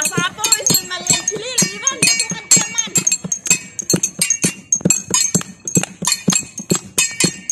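Metal kitchen utensils such as pans and lids, struck like gongs in a fast, even beat with a bright metallic ring, standing in for Cordillera gongs in a dance. Voices call out over the beat.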